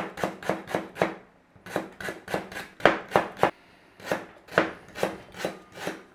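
Chef's knife slicing lemongrass stalks into thin rings on a plastic cutting board: quick, even knocks of the blade hitting the board, about four or five a second, in three runs with two short pauses.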